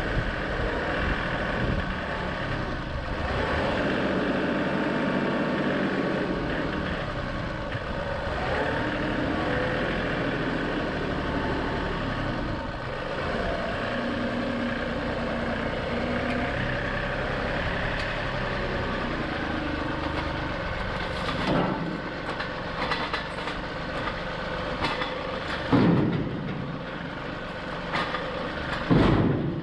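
John Deere 2038R compact tractor's three-cylinder diesel engine running while the loader grapple carries a log section. Over the last several seconds come metal clanks and knocks, then two heavy thumps near the end as the log is set down in a steel dump trailer.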